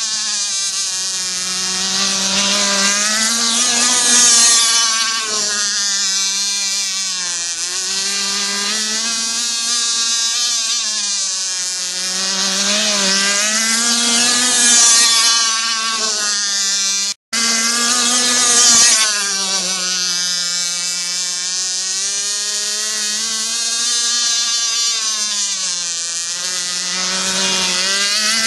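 Zenoah two-stroke petrol engine of a radio-controlled racing boat running at speed, its pitch rising and falling again and again as the boat runs past and turns, with hiss from the hull and spray. The sound cuts out for an instant about two-thirds of the way through.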